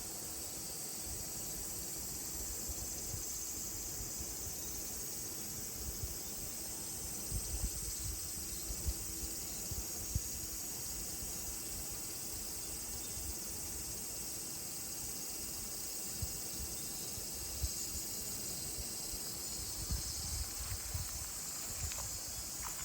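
Steady chorus of summer insects shrilling without a break, with occasional low rumbles and small bumps on the microphone.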